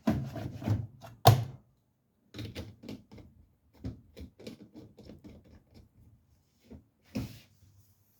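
Haier washing machine being handled and shut after the washing liquid goes in: a loud clunk about a second in, then a run of irregular clicks and knocks, and a short scrape near the end.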